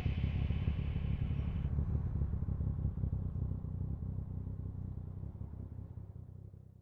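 Motorcycle engine running at low speed, a steady low rumble picked up by a bike-mounted camera, gradually fading out near the end.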